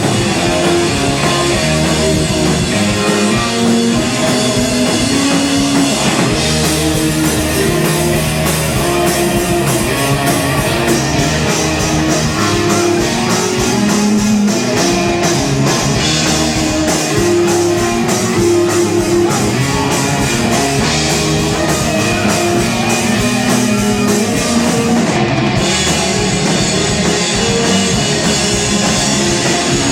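Live rock band playing an instrumental passage: distorted guitars and a drum kit, loud and continuous, with the cymbals and drums picking up a fast steady beat about six seconds in.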